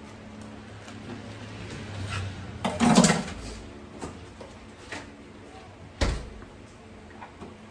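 Freezer door being opened and shut: a loud clatter about three seconds in and a sharp knock about six seconds in, over a low steady hum.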